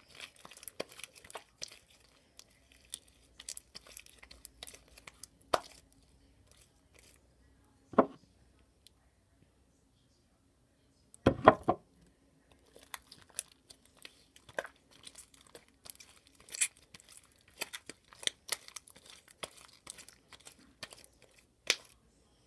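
Sticky glue-and-borax slime being kneaded and pulled by hand, making irregular wet clicks and crackles, with a louder sticky smack about eight seconds in and another a little after eleven. The slime is still too sticky, not yet fully activated.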